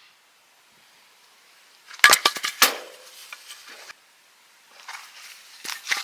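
Camp gear being handled: a quick run of sharp clinks and knocks about two seconds in, then a few softer ones and another group near the end.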